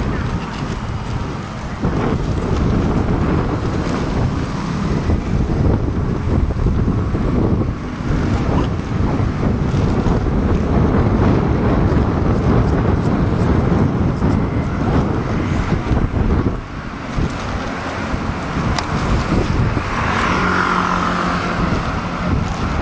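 Low, loud rumble of road traffic mixed with wind buffeting the microphone; a steadier hum joins near the end.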